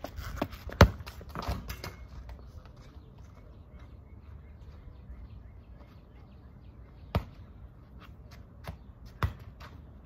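A rubber ball striking the asphalt driveway: a loud thud about a second in with a few smaller knocks after it, then two sharper bounces in the second half.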